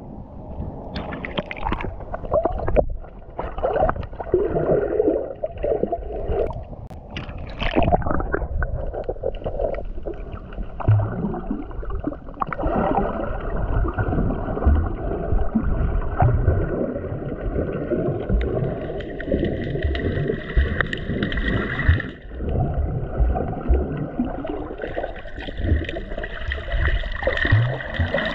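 Muffled water sloshing and gurgling heard through a camera held underwater, with irregular low knocks and swells.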